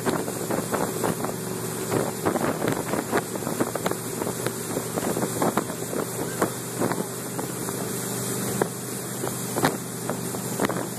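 Motorboat engine running steadily under way, heard from aboard, with the rush of water in the wake and wind buffeting the microphone. Frequent short thumps and slaps cut through it.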